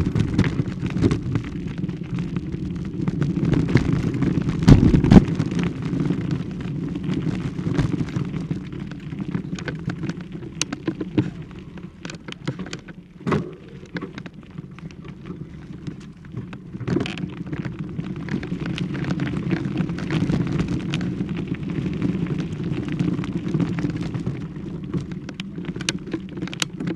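Continuous low rumble of handling noise on a handheld camera's microphone as it is carried along at walking pace, with many scattered clicks and knocks.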